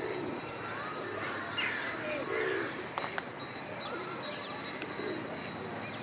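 Feral rock pigeons giving low, repeated courtship coos, the bow-coo of displaying males, with higher chirps of other birds throughout and a couple of sharp clicks about three and five seconds in.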